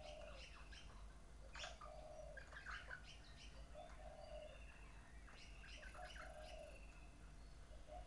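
Faint birdsong: a pigeon's low coo repeated about every two seconds, under scattered higher chirps and whistles from other birds.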